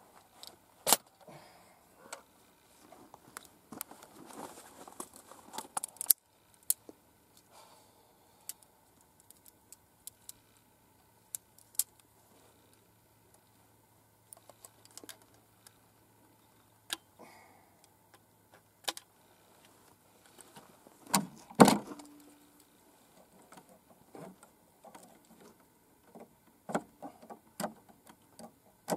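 Sharp metallic clicks and short rattles of a 12-gauge shotgun being handled and its action worked, scattered with quiet gaps between them. The loudest clatter comes about three-quarters of the way through.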